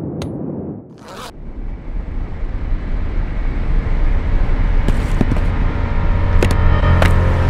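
A cinematic sound-design riser: a low rumble that swells steadily louder, with a short whoosh about a second in, a few sharp clicks later on and faint held tones rising out of it near the end as it builds into music.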